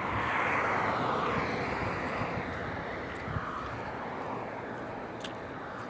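A car passing on the road close by: its tyre and engine noise swells and then fades away over the first three seconds, leaving a lower traffic hum.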